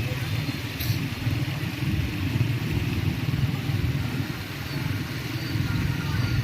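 Steady low rumble of a moving motor vehicle: engine and road noise.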